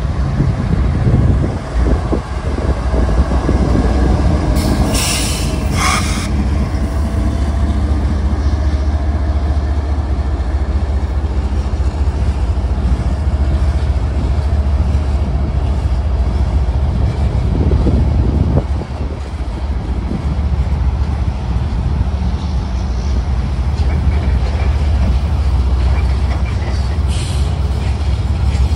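Freight train passing close by: the diesel locomotive's engine rumble at the start gives way to the steady rumble and rattle of loaded open hopper cars rolling over the rails. A brief high wheel squeal cuts through about five seconds in.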